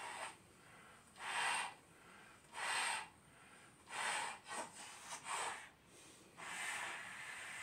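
A person blowing up a balloon by mouth: a series of hard breaths of rushing air, one every second or so with short pauses for breath between, the last one longer.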